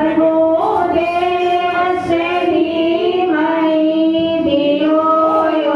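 A woman singing a devotional song into a microphone, in long held notes that slide gently from one pitch to the next.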